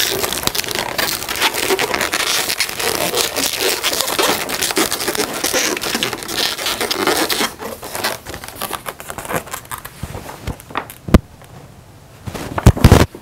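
Latex twisting balloons rubbing and squeaking against each other as they are twisted and worked by hand, a dense crinkly squeaking for the first seven seconds or so. It then goes quieter, with a few sharp clicks near the end.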